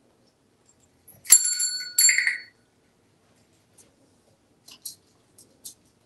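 A small metal bell on a parrot's play stand struck twice in quick succession, each strike ringing briefly, followed by a few faint light clicks as the African grey parrot moves about the stand.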